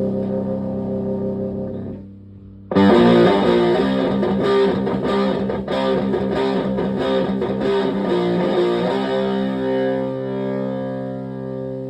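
Electric guitar through a Tone Bender MKII-style fuzz pedal into a Fender Twin Reverb-type amp: a held fuzz chord fades, then after a brief pause a quick run of fuzzed notes and chords plays for about six seconds, ending on a chord left to ring out.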